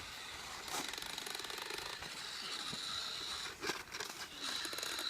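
Child's toy chainsaw running with a steady, rapid rattle and a thin high whine over it.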